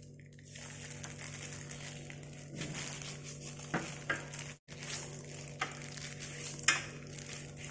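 Hand peeler shaving a carrot into thick ribbons: a few short, sharp scraping strokes, the loudest near the end, over a steady low hum. The sound cuts out for an instant about halfway through.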